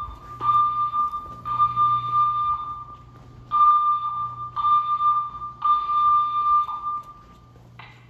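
Fire alarm sounding a steady high tone in groups of three pulses with a pause between groups: the temporal-three evacuation signal.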